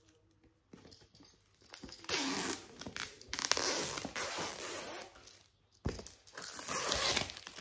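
Packaging being torn open and crinkled by hand: a few light clicks, then two long stretches of tearing and rustling, the first starting about two seconds in and the second near the end.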